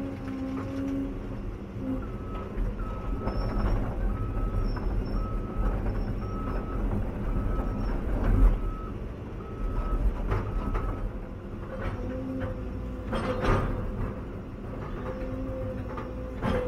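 Caterpillar 316EL excavator running, heard from inside the cab, with a steady drone from the diesel and hydraulics. From about two seconds in to about eleven seconds in, a warning alarm beeps at a bit more than one beep a second. A few knocks come later.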